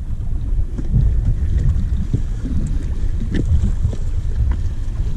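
Wind buffeting the microphone: a loud, uneven low rumble that rises and falls in gusts, with a few faint clicks.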